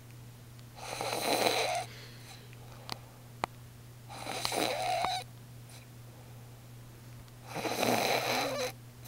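A woman snoring: three loud, rasping snores, one about every three and a half seconds, with two short clicks between the first and second.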